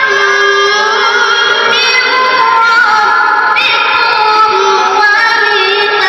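A boy's high voice reciting the Qur'an in the melodic tilawah (qira'at) style, holding long high notes with wavering ornaments.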